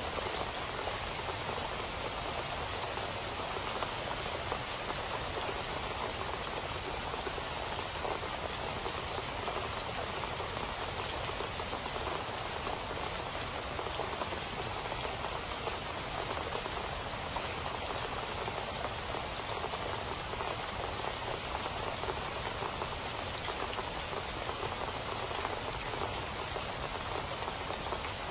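Heavy rain splashing into standing water on a flat surface: an even, unbroken hiss of many drops.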